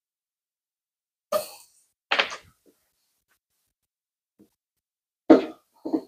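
A man coughing twice, about a second apart, then a few loud short voice sounds near the end, with dead silence in between.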